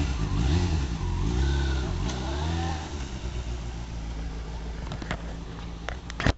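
Sport motorcycle engine revving, its pitch rising and falling several times, then dropping to a lower, quieter steady running after about three seconds. A sharp click near the end.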